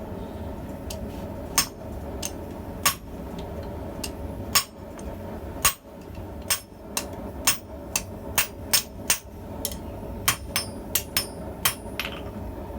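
Hand hammer blows ringing on steel, irregular at first and then in a quicker run of strikes about two to three a second, as serrations are cut into the jaws of blacksmith tongs. A steady low rumble runs underneath.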